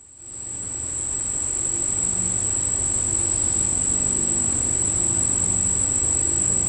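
Calling insects making a steady, high-pitched, unbroken buzz, with a faint low hum underneath.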